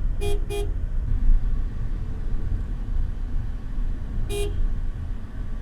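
A vehicle horn gives two quick short toots, then one more short toot about four seconds later, over the steady low rumble of road traffic.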